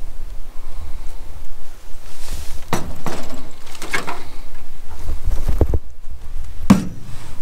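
Footsteps through forest undergrowth: a handful of short crunching steps, bunched around the middle with one more near the end, over a steady low rumble on the microphone.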